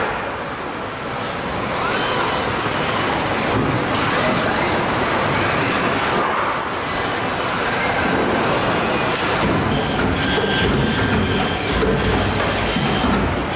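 Car body-shop machinery running: KUKA industrial robot arms at work, with a dense mechanical din, whines that rise and fall, and scattered clicks and clanks. A thin, steady high-pitched tone sits over it, and from about ten seconds in a set of high tones pulses on and off.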